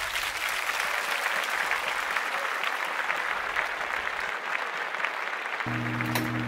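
Outdoor audience applauding at the end of a live song. About five and a half seconds in, steady low tones come in over the clapping.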